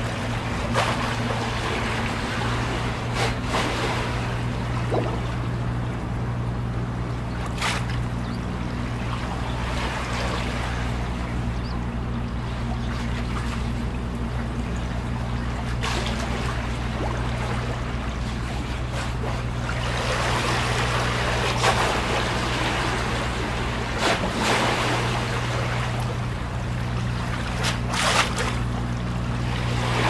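Small waves lapping and slapping against a concrete harbour wall, with a sharp splash every few seconds and a wash that swells about two-thirds of the way in and again near the end. A steady low hum runs underneath.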